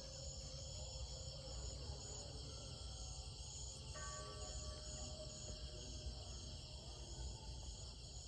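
Steady chorus of insects in the rice field, a high, pulsing trill, over soft background music whose held notes come in about halfway through.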